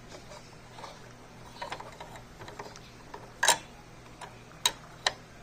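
Small clicks and taps of the bobbin case being fitted back into the bobbin area of a Singer Patchwork sewing machine. There are faint taps at first, then three sharp clicks in the second half, the first of them the loudest.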